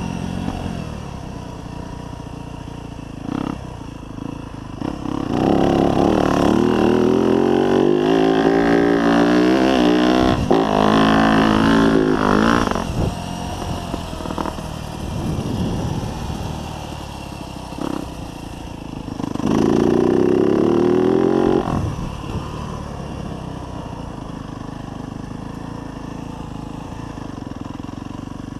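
A 2024 Yamaha YZ250F's single-cylinder four-stroke engine, heard from on board while riding. It revs up hard under throttle in two spells, a long one starting about five seconds in and a shorter one around twenty seconds, and drops back to a lower drone in between and after.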